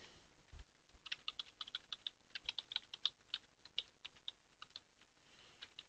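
Faint typing on a computer keyboard: a run of quick, uneven keystrokes starting about a second in.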